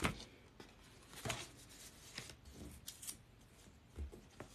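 Quiet handling of paper cards at a desk: a handful of short taps and rustles about a second apart, the first the loudest.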